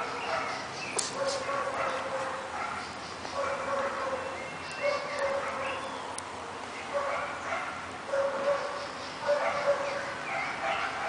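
Dog whining and yipping in play: short, high, steady-pitched calls repeated every second or so.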